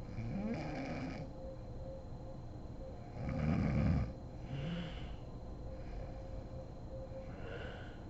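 A sleeping woman snoring, several snores in a row: the loudest about three seconds in, and a fainter one near the end.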